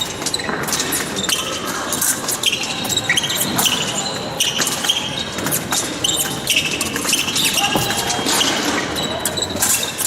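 Épée fencers' footwork on the piste during a bout: quick stamps and shuffles with many short, high shoe squeaks, echoing in a large hall with voices in the background.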